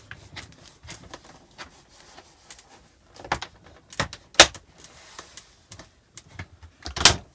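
Trim strip being worked back onto the edge of a Norcold RV refrigerator door: light scuffs and clicks, then several sharp knocks from about three seconds in, the loudest near four and a half seconds, and another knock near the end.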